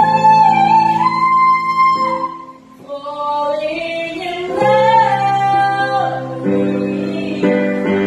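A young female voice singing high held notes, stepping up and down, over a steady instrumental accompaniment of sustained chords; the singing eases off briefly about two and a half seconds in.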